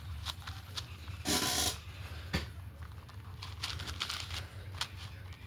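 A twisty puzzle cube being turned by hand: irregular plastic clicks and clacks of the layers snapping round, with a brief louder rush of noise about a second and a half in.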